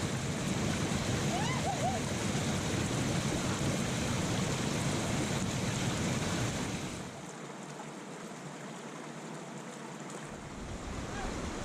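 Steady rush of water at a loch, turning quieter and thinner about seven seconds in. A faint voice is heard briefly near the start.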